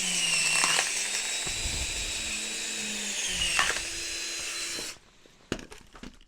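Power drill turning a screw-type wood-splitter cone into a log, with a steady motor whine that sags twice as the cone bites under load. It stops suddenly about five seconds in, followed by a few sharp knocks.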